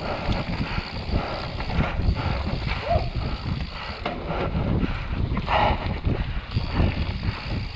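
Mountain bike descending a dirt forest singletrack at speed: tyres rolling and scrabbling over dirt and dry leaves, the bike rattling and knocking over bumps, under a steady low rumble of wind on the microphone. A couple of louder scrapes stand out, one about three seconds in and one past the middle.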